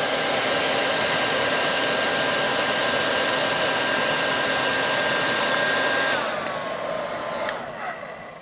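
1800-watt hair dryer running at full power and full heat, a steady blowing rush with a motor whine. About six seconds in it is switched off: the whine drops in pitch and the sound fades as the motor spins down, with a click near the end.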